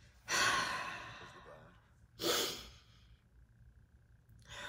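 A person sighing: a long breathy exhale about a third of a second in that fades slowly, then a shorter, sharper breath about two seconds in.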